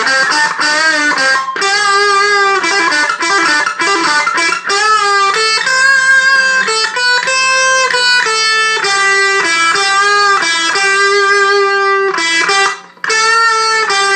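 Electric guitar through an amplifier on a blues tone, playing single-note blues lead lines with bent notes. There is a short break about 13 seconds in.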